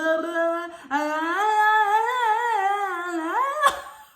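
A woman humming a tune with her mouth opened wide and her tongue out, as a throat exercise against snoring. It comes in two long wavering phrases, with a short break about a second in and the pitch rising near the end, and a brief click near the end.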